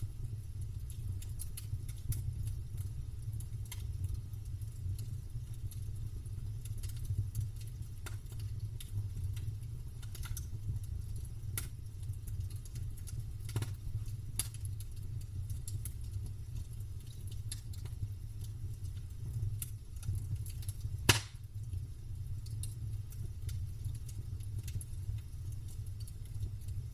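Campfire crackling: scattered sharp crackles and pops of burning wood over a steady low rumble, with one much louder pop late on.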